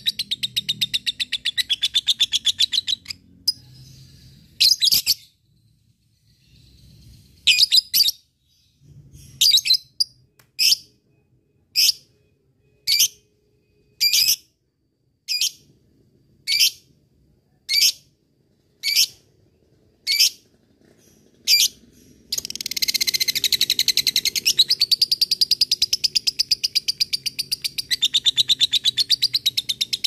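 Lovebird chattering: a rapid rattling trill (the 'ngekek' call) for about three seconds, then a string of about a dozen short sharp calls roughly one a second, then about three quarters of the way in a long unbroken rattling trill starts.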